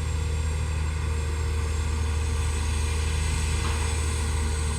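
Engine of heavy construction machinery running with a steady low drone.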